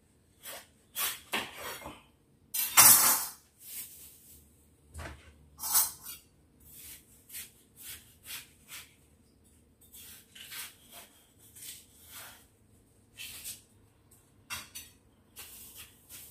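Kitchen knife cutting watermelon wedges on a wooden chopping board: irregular cutting strokes and knocks of the blade on the board, the loudest about three seconds in.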